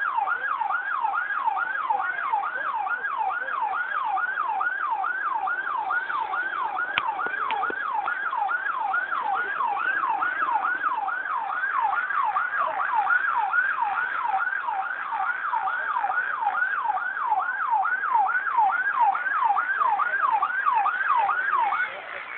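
Emergency siren in a fast yelp, each cycle sweeping up sharply in pitch, a little over two cycles a second. It stops near the end.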